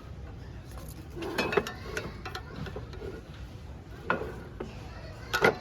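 Kitchen utensils and dishes being handled: scattered clinks and knocks, with a ringing clink about four seconds in and the loudest one just before the end.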